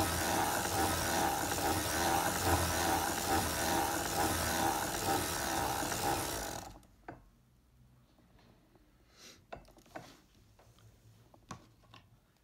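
Foster Victoria vintage circular sock machine being hand-cranked, its needles clattering steadily through the cams as it knits round and round. The cranking stops abruptly about halfway through, leaving a few faint clicks and taps.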